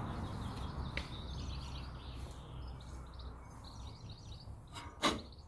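Small birds chirping and twittering over a low background rumble, with a short, sharp knock near the end.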